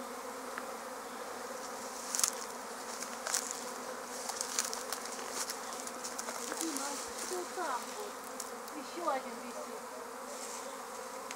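A honeybee swarm humming steadily: the dense buzz of many bees flying around the freshly settled swarm cluster. Scattered rustles and crackles come between about two and six seconds in, and short rising and falling buzzes near the two-thirds mark.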